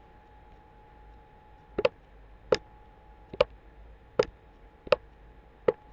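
Computer mouse clicking: six sharp single clicks about three-quarters of a second apart, starting about two seconds in, over a faint steady hum.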